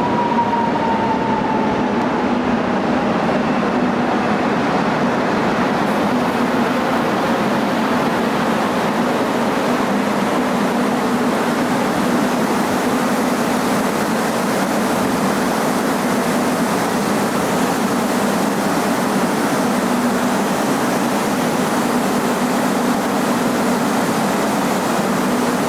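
Hyundai Rotem Class 321000 electric multiple-unit train pulling slowly into a platform: a faint whine falls in pitch over the first few seconds as it slows, under a steady rolling rumble with a low hum.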